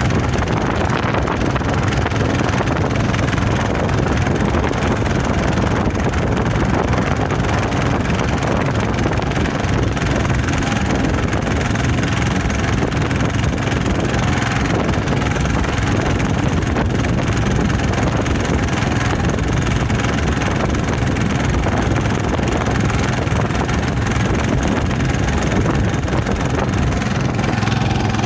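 Small motorboat's engine running steadily under way, with wind and water noise.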